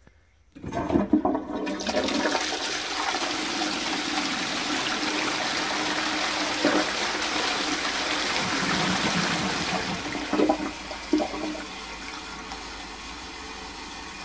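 Post-1945 STOM Cardiff 146 cast-iron high-level cistern flushing down its flushpipe into the pan: a loud rush of water starts about half a second in and runs for about ten seconds, with a few clunks. It then drops to a quieter steady flow of water.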